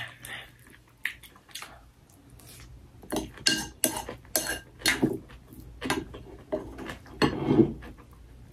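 Metal spoon clinking and scraping against a ceramic bowl while mixing rice. The clinks are sparse at first, then come quickly and irregularly from about three seconds in, with a longer scrape near the end.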